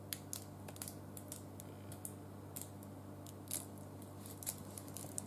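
Squeeze bottle of barbecue sauce being squeezed and drizzled: scattered faint clicks and ticks from the bottle and the spurting sauce, over a low steady hum.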